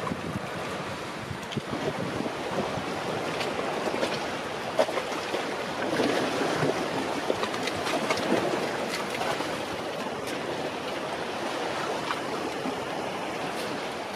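Seawater washing around shoreline rocks, a steady rushing noise with wind on the microphone. A few light clicks stand out over it.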